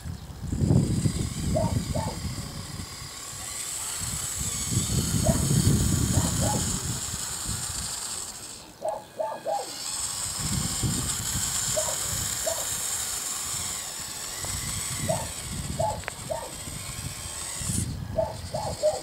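Radio-controlled Bruder CAT mini wheel loader driving over loose gravel, its wheels crunching in uneven swells, with short bird chirps now and then.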